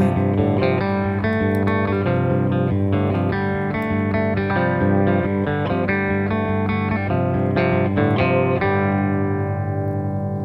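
Guitar picking a quick, repeating desert-blues phrase over a low drone note, then about nine seconds in a final chord is left ringing and slowly fading.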